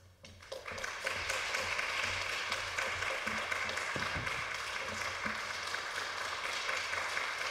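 Small audience applauding, starting about half a second in and going on steadily.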